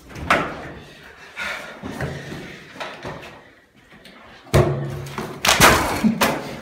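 Scuffling and voice sounds, with a loud sudden thump about four and a half seconds in and another about a second later.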